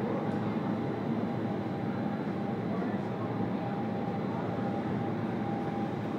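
Steady rush of air through a vertical indoor-skydiving wind tunnel, heard from inside the flight chamber, with a faint steady tone above it.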